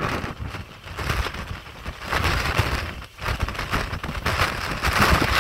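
Hurricane wind and heavy rain, the wind buffeting the microphone in gusts that swell and ease every second or two.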